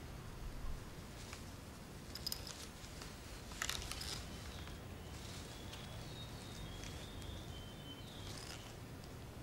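Hands rummaging through a cloth handbag: a few soft rustles and small clicks of things inside it, the loudest about three and a half seconds in.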